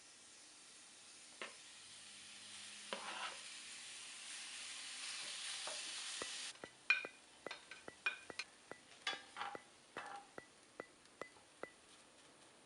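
Food sizzling in a frying pan, the hiss building steadily for about six seconds and then cutting off. After that comes a run of quick, irregular clicks and scrapes of a utensil against the pan as the food is stirred.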